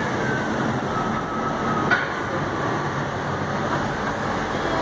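Steady city street traffic noise, with a faint whine falling in pitch over the first two seconds and a single click about two seconds in.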